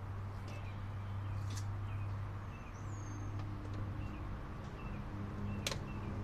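Small birds chirping intermittently over a steady low hum, with two sharp clicks, one about a second and a half in and one near the end.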